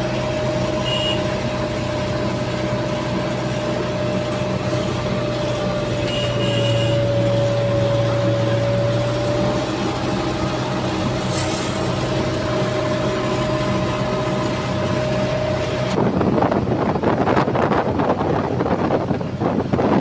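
JCB 3DX backhoe loader's diesel engine running steadily at road speed, heard from inside the cab, with a steady whine over the engine note. About four seconds before the end it gives way to gusty wind buffeting the microphone.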